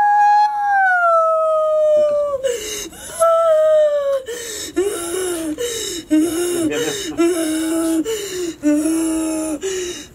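A woman wailing: a long, high drawn-out cry that slides down in pitch, then a string of shorter, lower, wavering sobbing wails. The host takes her for a medium possessed by a spirit.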